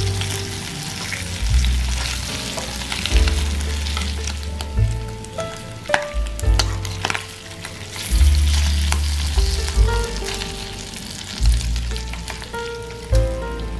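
Bacon sizzling and spitting in fat in a nonstick frying pan, with metal tongs clicking against the pan now and then as the strips are turned. Background music with a bass line plays under it.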